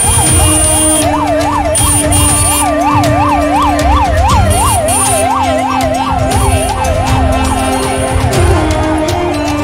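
A fast yelping siren, its pitch rising and falling about three times a second, over the heavy steady noise of a dense crowd.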